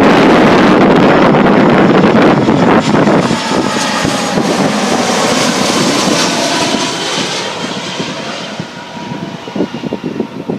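Strong wind buffeting the microphone for the first few seconds, then a jet airliner passing on approach, its engine whine sliding down in pitch as it goes by and slowly fading.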